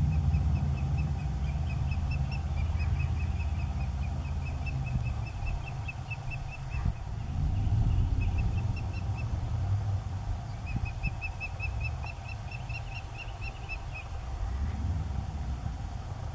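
Osprey calling: rapid series of short, high whistled chirps, about four a second, in three bouts. Under them runs a steady low rumble.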